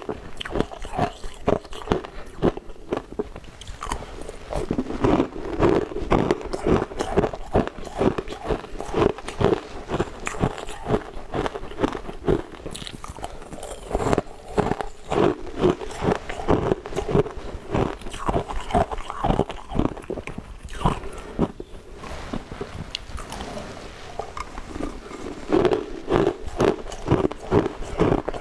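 Frozen coloured ice cubes being bitten and chewed close to the microphone: a quick, continuous run of sharp, cracking crunches.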